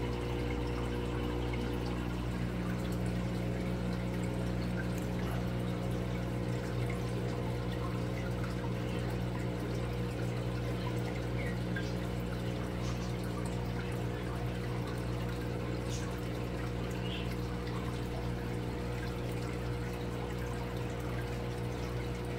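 Water bubbling and trickling from an air-driven sponge filter in an aquarium, over a steady low hum made of several fixed tones.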